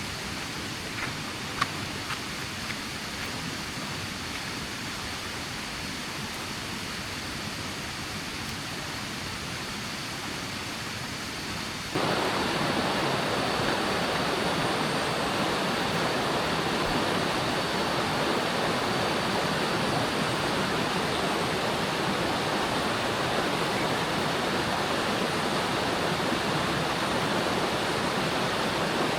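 Steady rushing of flowing water, like a jungle stream, which jumps suddenly louder about twelve seconds in and then holds even.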